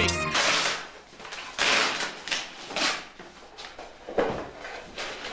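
Cardboard packaging rustling and scraping as the white flat-pack panels of an IKEA bookcase are slid out of their box, in a series of short scrapes and knocks.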